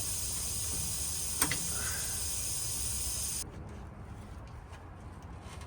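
Compressed air hissing steadily out of an air brake canister fitting as it is loosened, cutting off suddenly about three and a half seconds in. A single metallic click about a second and a half in.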